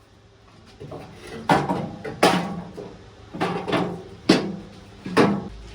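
Metal clunks and rattles from a skid steer's sheet-metal hood being handled and fitted, about six sharp knocks, each with a short ring.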